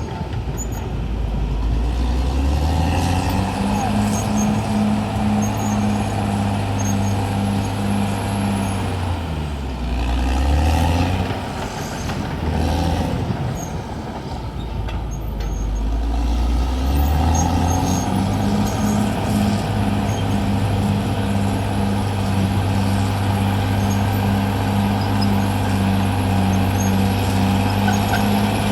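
Caterpillar D6R XL bulldozer's diesel engine working at high revs under load. Its pitch dips and recovers about a third of the way in, sags for several seconds, then climbs back and holds steady high to the end.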